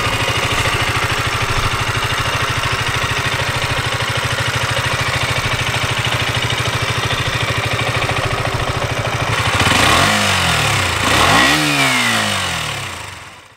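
KTM 125 Duke's 124 cc single-cylinder engine idling steadily, then revved twice near the end, each rev rising and falling back to idle.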